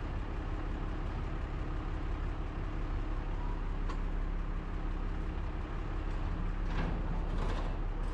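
Truck engine idling steadily, with a few faint knocks near the end as the truck's rear cargo doors are swung shut and latched.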